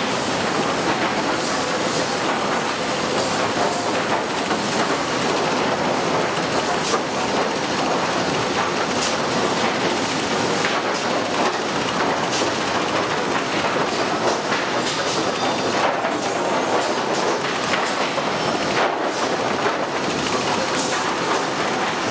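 Automatic lumber stacking machine running: a steady, dense mechanical clatter with frequent short knocks of boards and metal scattered through.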